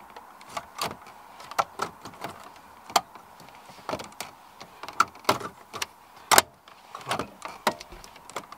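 A string of irregular sharp clicks and taps from metal radio-removal pins being worked in the slots of a Vauxhall Astra H's factory CD30 radio and the plastic fascia being pressed, as the pins are turned to catch the unit's release clips; the loudest click comes about six seconds in.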